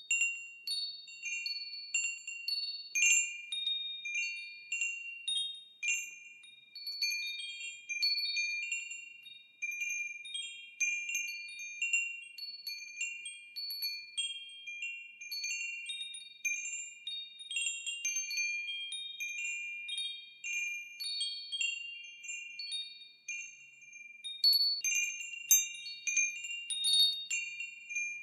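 Wind chimes ringing, struck again and again at random, each high clear note ringing on and overlapping the next. The strikes come thicker and louder near the end.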